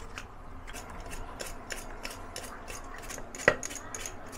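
Short scraping strokes of skin being rubbed and peeled off Chinese arrowhead corms by hand over a plastic bowl, about three a second, with one louder knock about three and a half seconds in.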